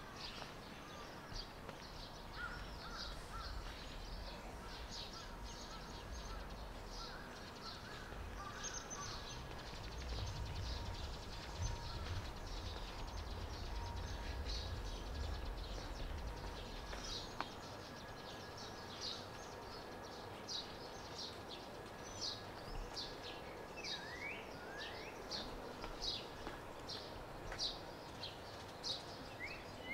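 Birds chirping outdoors: short high calls repeated all through, settling into an even run of about one or two a second in the second half, with a couple of rising notes about two-thirds of the way in. A low rumble sits underneath for the first half and stops about halfway through.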